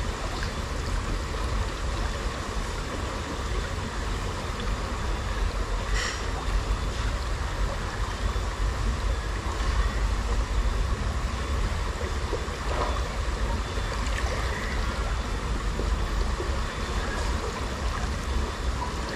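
Steady rush of flowing river water, an even noisy hiss with a deep rumble underneath, with one faint click about six seconds in.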